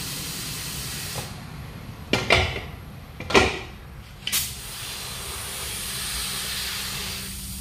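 Compressed air hissing through a tyre inflator gun with a pressure gauge on a small car tyre's valve. The hiss stops about a second in, three short sharp bursts of air follow about a second apart, and a steady hiss starts again about five seconds in.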